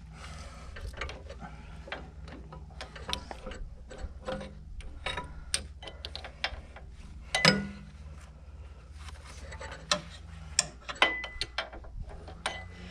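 Metal clicks and clinks of hydraulic hose quick-couplers being handled and fitted, with sharper ringing clanks about 7.5 s and 11 s in, over a low steady hum.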